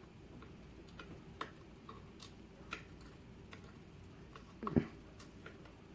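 Faint, scattered light ticks and clicks of small brass lock pins and metal tweezers being handled while a padlock core is taken apart, with a soft thump a little before the end.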